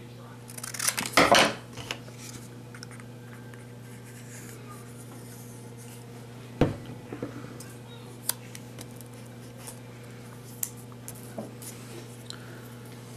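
Scissors snipping through a strip of cardstock about a second in. Later a single sharp knock and a few light handling ticks, over a steady low hum.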